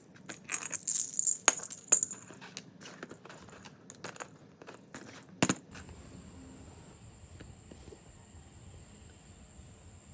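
Small plastic building blocks clicking and clattering against each other, with a run of sharp knocks over the first half and the loudest one about five and a half seconds in. Then the clicking stops, leaving a faint steady hiss with a thin high whine.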